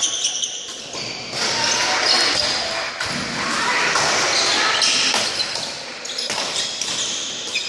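Badminton rally: rackets striking the shuttlecock in sharp knocks, and players' feet moving on the wooden court floor, with the echo of a large sports hall.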